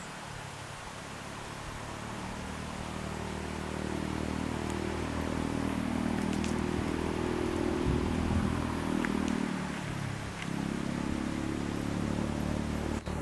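A motor vehicle's engine running as a low, steady hum that grows louder over several seconds, dips briefly and then carries on.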